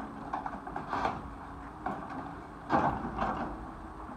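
Hydraulic excavator with a demolition grab tearing at the metal and wooden frame of a log flume building: irregular scraping and crunching of metal and wood, the loudest burst about three seconds in, over the steady hum of the excavator's engine.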